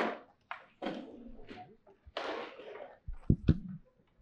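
Handheld microphone handling noise: a few breathy rustles, then two sharp knocks close together a little past three seconds in, the loudest sounds.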